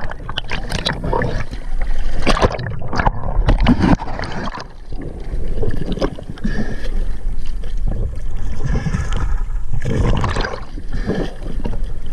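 Water splashing and gurgling close to the microphone in irregular surges, over a steady low rumble.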